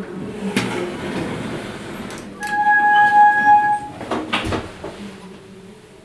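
Glass passenger lift setting off: a sliding rush of the doors and machinery, then a steady, clear tone held for about a second and a half, followed by a short clunk as the car gets under way.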